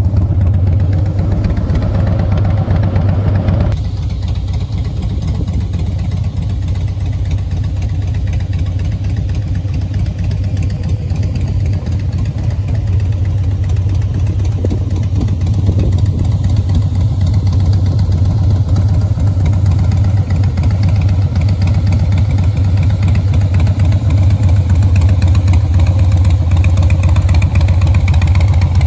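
Harley-Davidson Breakout's V-twin engine running steadily, a little quieter and duller from about four seconds in, then slowly building again toward the end.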